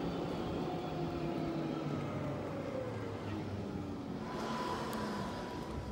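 A vehicle driving along a road: steady engine and road noise, its engine tones slowly falling in pitch. A thin steady whine joins about four seconds in.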